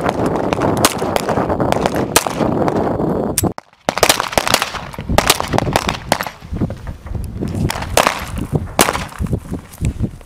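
M9 pistols firing on a range: sharp single shots at irregular intervals, some close and some from neighbouring lanes, over a steady rushing noise in the first few seconds. A brief gap of silence about a third of the way in, after which the shots come more sparsely.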